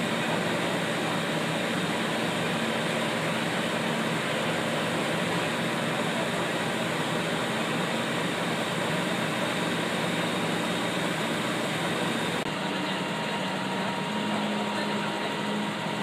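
Fire engines' diesel engines running steadily with a low hum. The sound changes abruptly about twelve seconds in, and the hum carries on.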